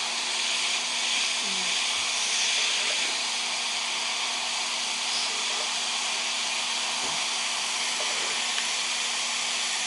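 A steady, even hiss with a faint low hum underneath.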